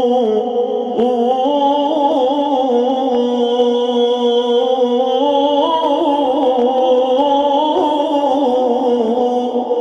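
A man's solo voice singing an Islamic devotional chant (madih for the Prophet) into a microphone, one long drawn-out line whose pitch winds slowly up and down without a break, easing off slightly near the end.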